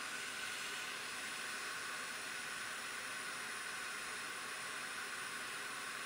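Hot air rework station blowing a steady hiss of hot air onto a USB-C Thunderbolt connector, melting its solder so the connector can be lifted off the circuit board.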